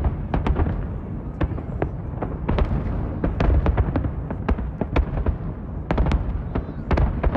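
Aerial fireworks display: shells bursting in quick, irregular succession, several sharp bangs a second over a continuous low rumble.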